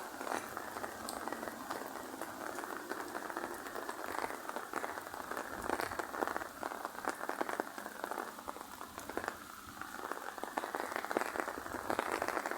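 Rain falling steadily, a dense patter of drops on hard surfaces, easing a little past the middle and picking up again near the end.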